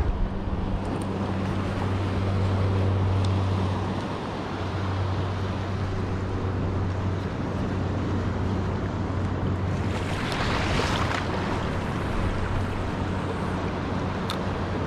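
Seawater washing over a shallow reef ledge, with wind on the microphone and a steady low hum underneath. A louder wash of water comes about ten seconds in.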